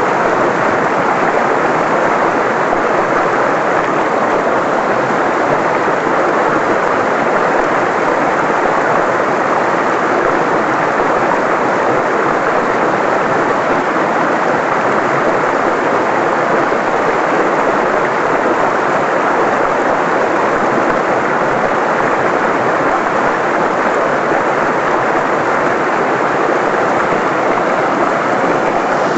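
A steady, even rushing noise like heavy rain or running water, unbroken and unchanging throughout.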